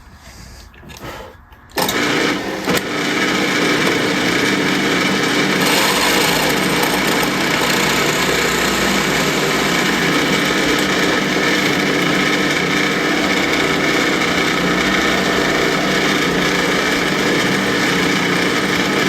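Old drill press switched on about two seconds in and running steadily, drilling bridge stud holes in a basswood guitar body.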